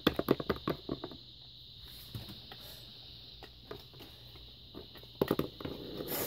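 Quick runs of light, sharp taps: a small plastic Littlest Pet Shop figurine being hopped across a tabletop by hand, in the first second and again near the end, with only faint room hiss between.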